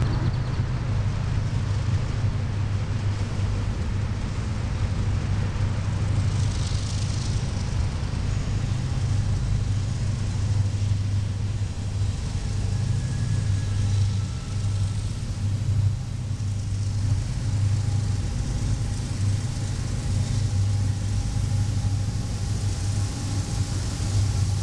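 Diesel-electric freight locomotives, a GE ET44AC leading a GE ES44AC and an EMD SD70M, running under power as they approach and pass. They give a loud, steady low drone that pulses slightly.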